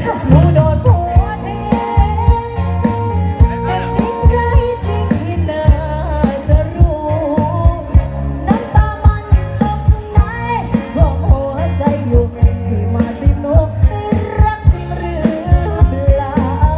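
Music with a singer carrying a melody over heavy bass and a steady drum beat.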